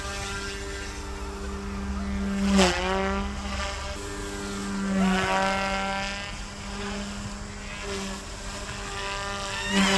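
OMPHOBBY M2 mini 3D RC helicopter's direct-drive brushless motors and rotors whining at a steady pitch, with quick dips and rises in pitch as the throttle changes, a few times.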